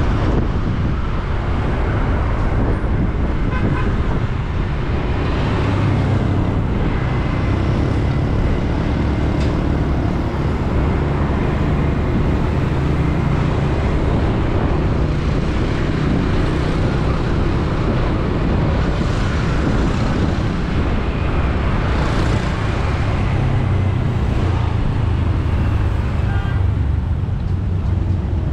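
Steady, loud road traffic heard from a bike riding along a city street, with a heavy low rumble.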